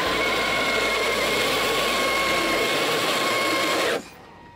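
Traxxas RC monster truck's electric motor whining at full throttle, tyres spinning on concrete as it strains to tow a full-size car on a rope, with too little traction to keep it moving. The whine holds one steady pitch and cuts off suddenly about four seconds in.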